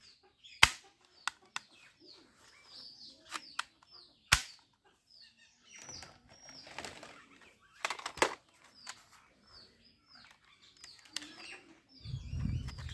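Plastic toy guns clicking and clacking as they are handled, with a few loud sharp snaps spaced a few seconds apart and a low rumbling handling noise near the end. Small birds chirp in the background throughout.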